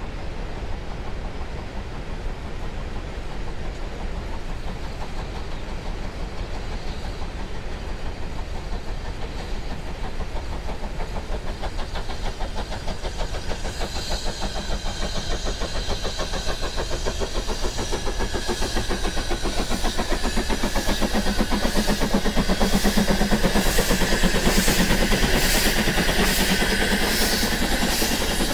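Furka Steam Railway's steam locomotive working uphill toward the listener and passing close by, its exhaust chuffing slowly and steadily and growing louder over the second half, with a high whine joining in near the end.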